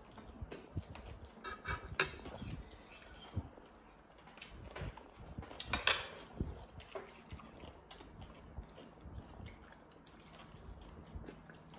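Quiet mealtime sounds: chewing and mouth noises with scattered light clicks of a spoon against plates and bowls, the sharpest clinks about two and six seconds in.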